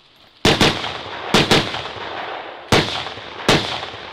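Six shots from a semi-automatic AR-style rifle: two quick pairs about half a second and a second and a half in, then two single shots about three quarters of a second apart near the end, each with a short ringing tail.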